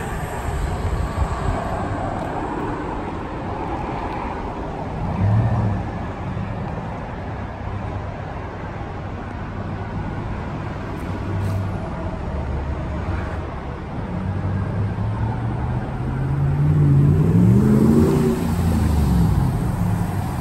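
2018 Ram 1500's Hemi V8 exhaust through a Mufflex 24 muffler kit: a steady low rumble from a distance with a short rev about five seconds in, then the truck pulling closer with the exhaust note rising and falling in pitch, loudest near the end as it arrives.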